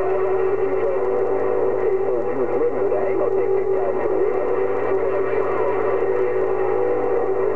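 CB radio receiver on channel 6 (27.025 MHz) playing band noise: a steady hum-like tone under static, with faint warbling, garbled signals from distant stations, muffled by the radio's narrow audio.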